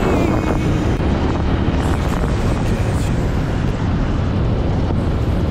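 Dirt bike engine running while riding, with heavy wind noise buffeting the microphone.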